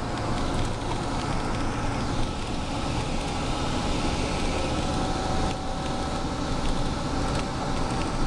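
Steady engine and road noise inside a moving bus, with a low hum and a few faint clicks or rattles.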